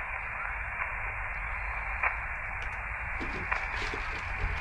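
Elecraft KX2 transceiver receiving on a single-sideband voice frequency. Its speaker gives a steady hiss of band noise and no answering station, with a couple of faint clicks.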